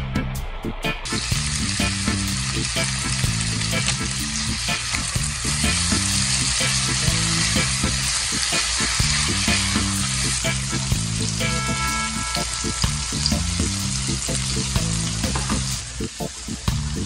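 Sliced onions, bell peppers and carrots sizzling in a pan while being stirred with a wooden spoon. The sizzle comes in about a second in and drops away near the end, with background music underneath.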